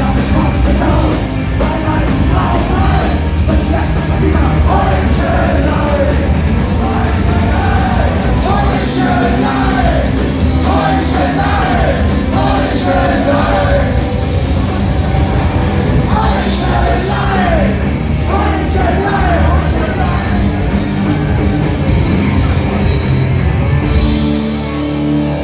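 Live punk rock band playing loud, with a singer whose vocal line drops out about twenty seconds in while the band plays on.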